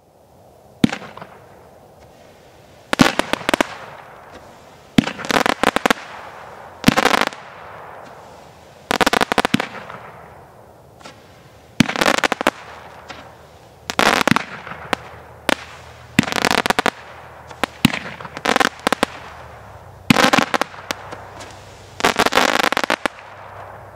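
TNT Dare Devil 12-shot multi-shot aerial firework cake firing, a shot roughly every two seconds, each a sharp bang followed by a quick cluster of crackling reports as the stars burst.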